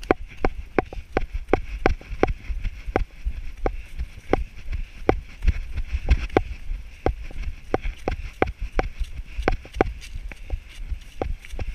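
A trail runner's steady strides, about three a second, each heard as a sharp click, over a low rumble of wind and jostling on the body-worn camera's microphone.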